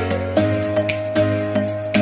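Background music: a held melody line over bass notes and a steady ticking beat.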